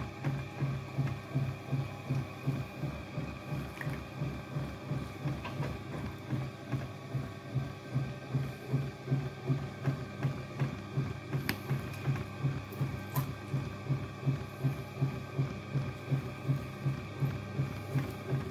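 Potter's wheel running, with a low rhythmic thrum that pulses about two and a half times a second as it spins.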